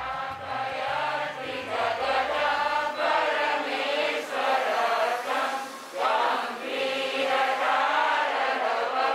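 A group of voices chanting a Jain prayer together in a steady, sung recitation.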